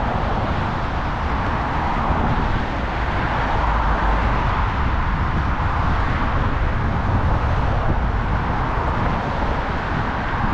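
Steady street traffic noise from cars passing on a multi-lane road, with a constant low rumble underneath.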